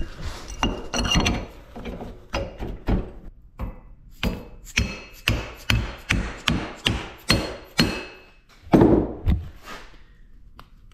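A rapid series of mallet blows on a steel wheel hub and sprocket carrier, about two to three sharp knocks a second with a slight metallic ring, stopping about 8 s in.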